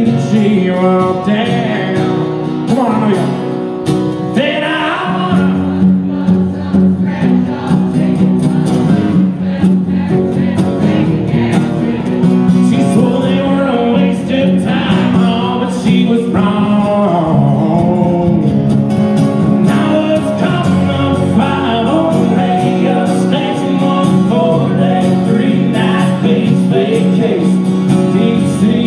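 Live acoustic country music: acoustic guitars strummed and picked, with a man singing.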